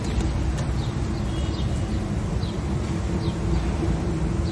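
Steady low rumble with a faint hum, and a few short high chirps, like small birds, scattered through.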